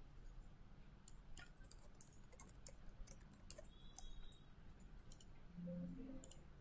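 Faint computer keyboard typing and mouse clicks: scattered, irregular sharp clicks. A short low tone sounds about five and a half seconds in.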